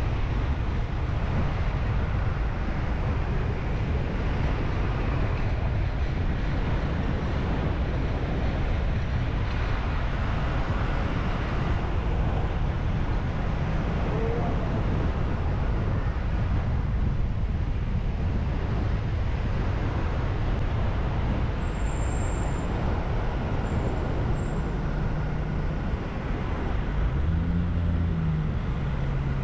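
Steady road noise of a car driving in city traffic: a continuous rumble of engine and tyres on the road, with a brief lower engine note near the end.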